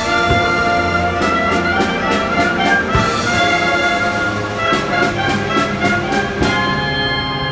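Amateur wind band of clarinets, saxophones, flute and brass playing a piece together, with a few sharp percussion strokes among the sustained chords.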